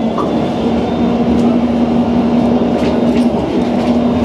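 GVB tram riding along its tracks, heard from inside the car: a steady rumble of wheels on rail under a steady hum, with a few faint clicks.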